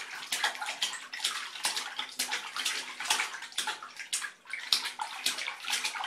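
A baby splashing in a plastic baby bathtub, slapping the water with his hand in a quick, irregular run of splashes, about three a second, with a short lull about four seconds in.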